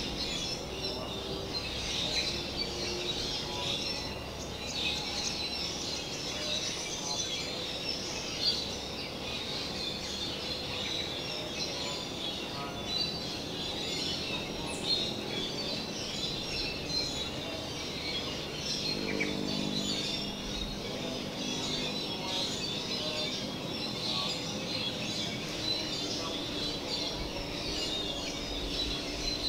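Tropical forest ambience: many birds chirping and calling at once over a steady background hiss.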